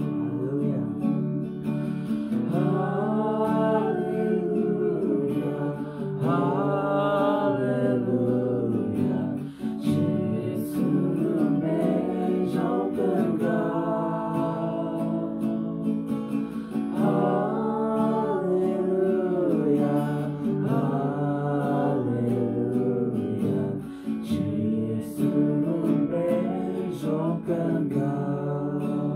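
A small group of people singing a song together, accompanied by acoustic guitar. The phrases are held and sung, with brief breaths between lines.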